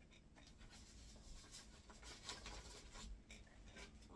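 Faint rustling and scratching of paper: greeting cards and envelopes being handled.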